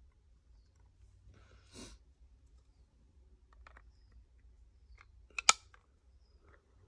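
Magnetic one-touch card holder snapping shut with a sharp double click, about five and a half seconds in. A short rustle of handling plastic comes about two seconds in.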